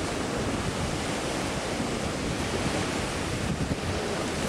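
Ocean surf washing in on the beach as a steady rush, with wind buffeting the microphone.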